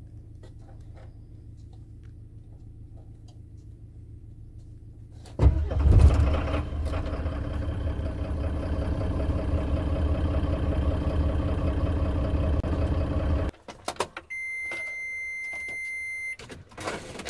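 Mercedes-Benz Atego's OM906LA six-cylinder turbo-diesel starting from cold at about −2 °C. About five seconds in, after a low hum, the starter cranks briefly and the engine catches with a loud burst, then idles steadily. The sound cuts off abruptly, and a steady electronic beep follows for about two seconds.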